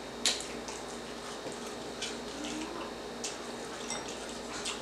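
Wet eating sounds close to the microphone: smacking and sucking on sauce-covered seafood boil, with scattered sharp clicks, the loudest just after the start.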